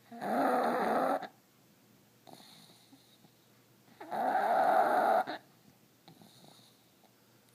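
A pug snoring: two loud snores about four seconds apart, each lasting about a second, with fainter breaths in between.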